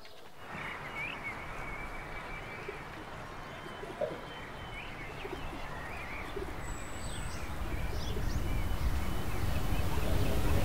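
Outdoor ambience: birds chirping faintly over a steady background noise that swells louder toward the end.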